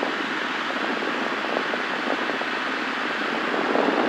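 Cessna 172 cabin noise: the engine and propeller's steady hiss, heard through the headset intercom with the low end cut away.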